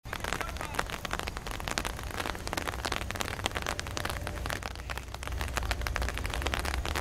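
Light rain pattering with dense, irregular clicks, over the low rumble of approaching CSX diesel locomotives, which grows a little toward the end.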